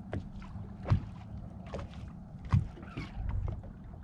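Small waves slapping against a bass boat's hull, with a low steady hum underneath. Sharp knocks come about a second in and again at about two and a half seconds.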